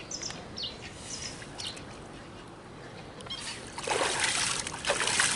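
A big carp swimming off from a hand release in shallow river water, its tail splashing loudly from about four seconds in.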